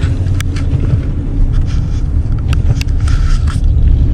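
Car driving, heard from inside the cabin: a steady low rumble of engine and tyres on the road, with a few light clicks and knocks.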